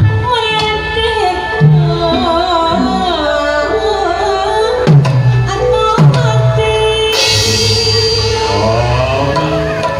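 Jaipong gamelan music with a woman singing a wavering, ornamented line into a microphone over the ensemble's sustained gong tones. Two deep kendang drum strokes come about halfway through.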